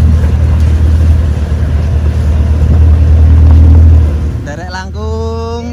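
Off-road vehicle's engine rumbling low and steady while crawling a rough track, fading about four seconds in. A person's voice with drawn-out, gliding tones starts near the end.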